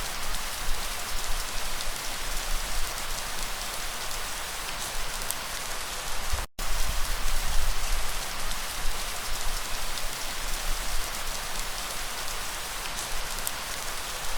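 Light rain falling steadily, an even hiss of many drops. It cuts out completely for a split second about six and a half seconds in.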